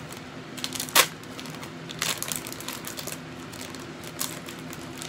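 Small plastic aquarium decorations being handled, with a few sharp clicks and crinkling. The loudest click comes about a second in and more follow around two seconds in and near the end, over a steady low hum.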